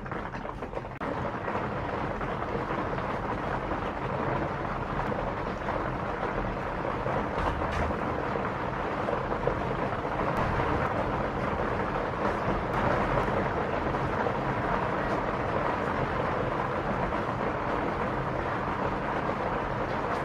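Steady rushing noise that steps up in level about a second in and then holds even, with a few faint clicks.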